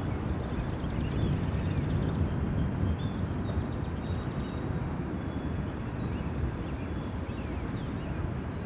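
CN freight train of covered hopper cars rolling past, its wheels on the rails making a steady low rumble.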